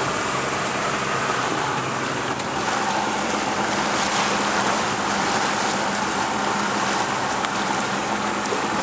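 Steady wash of water and wind around a small fishing boat on the sea, with a faint steady low hum underneath.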